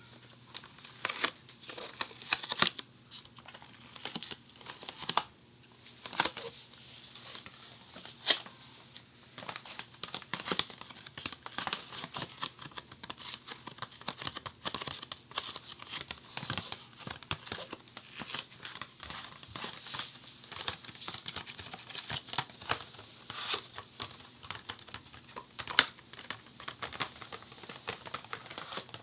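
Fingers tapping, scratching and rubbing a Funny Foam box close to a binaural dummy-head microphone. The sound is a steady run of irregular crisp taps and crinkly rustles.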